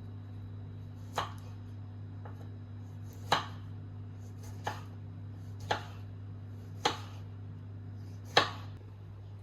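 Kitchen knife chopping on a cutting board: six single, unhurried cuts about a second or so apart, over a steady low hum.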